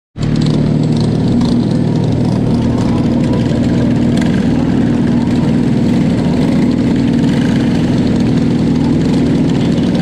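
Briggs & Stratton LO206 single-cylinder four-stroke kart engines idling steadily, loud and close, with no revving.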